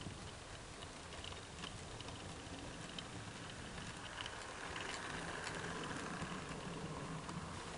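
Model steam locomotive and coaches running past on model railway track: a steady electric-motor whirr and hum with the light clicking of small wheels over rail joints, getting louder about halfway through as the train comes close.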